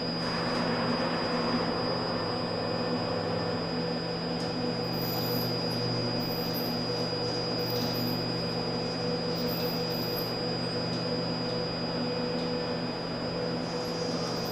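Steady electrical hum with a thin high whine from the powered PUMA 560 robot arms and their servo drives as one arm moves slowly.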